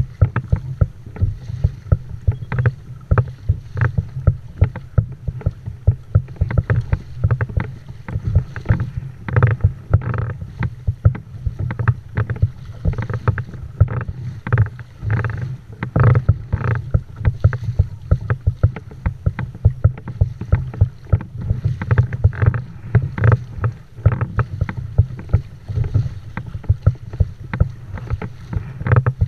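Sit-on-top kayak moving through choppy sea: water slapping and splashing against the plastic hull in quick, irregular knocks over a steady low rumble.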